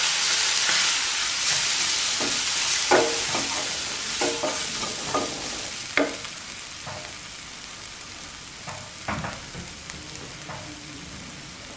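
Onions and ground spices sizzling in hot oil in a nonstick wok while a wooden spatula stirs and scrapes them around, with a few knocks of the spatula on the pan. The sizzle dies down over the second half once the stirring stops.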